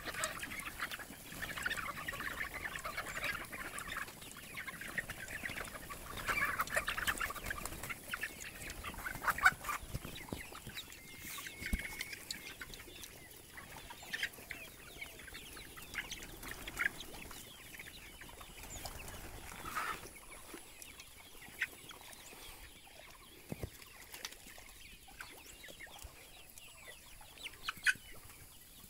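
A flock of free-range chickens, mostly hens, clucking: a dense chorus of overlapping calls for about the first ten seconds, thinning to scattered clucks after that.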